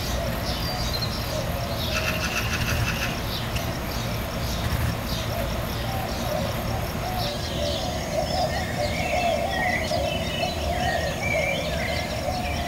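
Outdoor ambience of small birds chirping over and over, with a rapid trill about two seconds in, over a steady low rumble.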